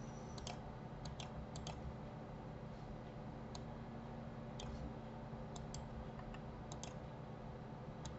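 Computer mouse clicking: about ten separate sharp clicks, some in quick pairs, spread irregularly, over a steady low electrical hum.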